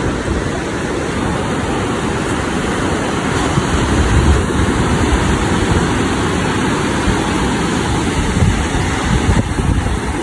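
Surf breaking on a sandy beach, a steady wash of waves, with wind rumbling on the microphone in gusts.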